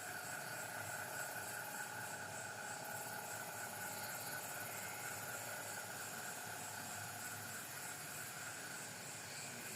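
Steady chorus of night insects, several high trilling pitches running together without a break.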